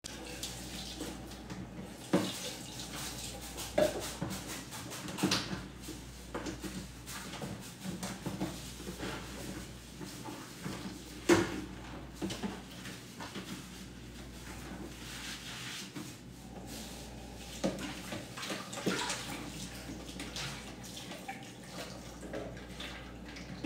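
Water running from a kitchen tap into a sink as dishes are washed by hand, with a handful of sharp clinks of pots and dishes, the loudest about eleven seconds in.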